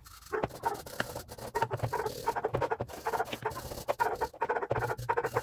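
Steel wire brush scrubbed by hand over a rusty metal part of a breast drill, fast, irregular scratchy strokes that rasp the rust away.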